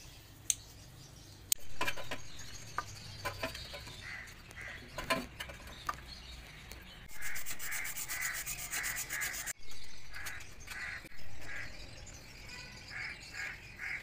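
A metal hand tool is being worked on copper refrigerant pipe at an air-conditioner rotary compressor. It starts with scattered clicks and knocks, then a fast rasping scrape for about two seconds, roughly halfway through, followed by shorter scraping strokes.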